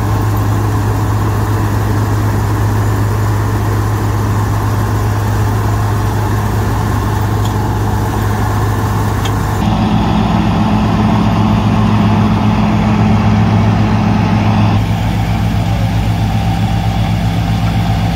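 New Holland combine harvester's engine and threshing machinery running steadily while harvesting wheat, a continuous low drone. The sound shifts abruptly about ten and fifteen seconds in.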